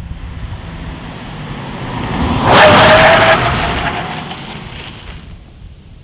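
Small front-wheel-drive hatchback passing at about 100 km/h under full emergency braking. Its tyre noise rises to a loud rush about two and a half seconds in, with a brief steady tone from the tyres on the tarmac, then fades as the car slows to a stop.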